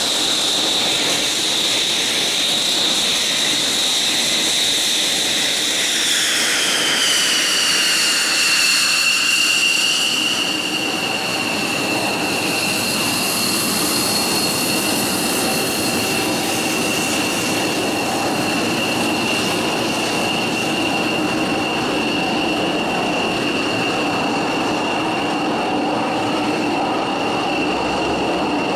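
F-16 fighter jet engines running on the ground: a loud, high turbine whine over a steady rumble. The whine drops in pitch about six to eight seconds in, then holds steady.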